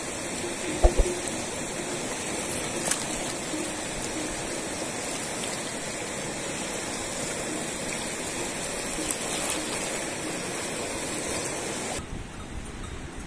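A wide, fast river rushing steadily past a stony bank, with a sharp knock about a second in. The rush turns duller and quieter near the end.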